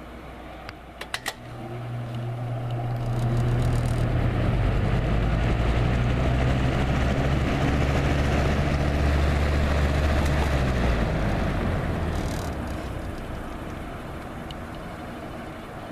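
1999 Lasko 3733 20-inch box fan switched to medium with a click. Its motor hums and the blade whoosh builds over a few seconds as it spins up, then runs steadily. About twelve seconds in there is another click and the fan winds down.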